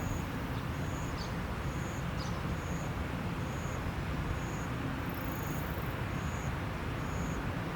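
Steady, even outdoor rushing noise, with a short high-pitched chirp repeating about once a second.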